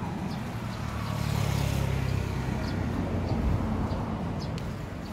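Low engine rumble of a motor vehicle passing, swelling about a second in and easing off after another second or so.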